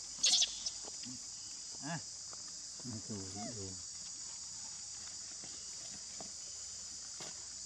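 A steady, high-pitched chorus of insects, with a loud sharp crackle about half a second in and a few brief low vocal sounds around two and three seconds in.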